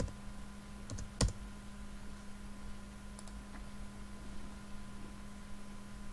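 A few clicks of computer keyboard keys, the loudest about a second in and a couple of fainter ticks around three seconds, over a steady low electrical hum.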